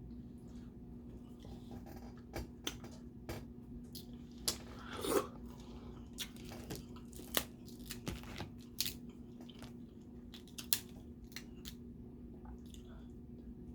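Close-up eating sounds: crab and crawfish shells cracking and snapping in scattered sharp clicks, with chewing in between and a longer, louder sound about five seconds in. A faint steady hum runs underneath.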